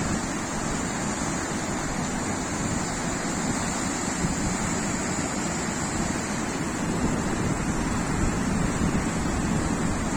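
Floodwater flowing, a steady, unbroken rush of water.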